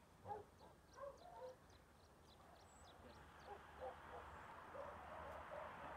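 Quiet outdoor ambience: a few short, faint animal calls in the distance in the first second and a half, then a soft hiss that slowly grows louder.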